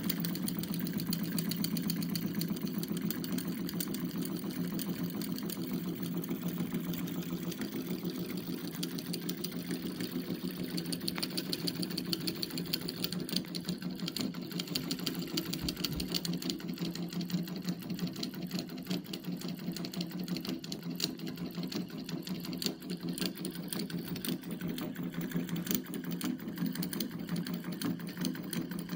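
Small homemade solenoid engine running steadily, its plunger snapping in and out of the coil as the crank turns: a fast, even mechanical clatter of rapid clicks.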